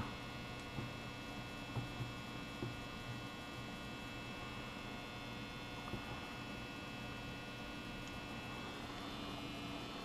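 Steady electrical hum, with a few faint soft ticks.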